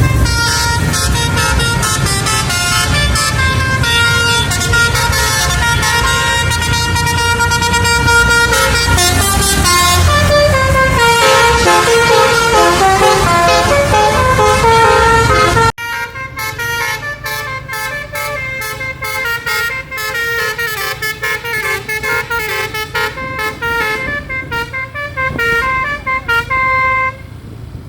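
Tunggal Jaya Saturn tour bus's telolet basuri multi-tone horn playing fast melodic runs of many notes over a low rumble. About halfway through the sound drops abruptly to a quieter passage of short, clipped notes stepping up and down.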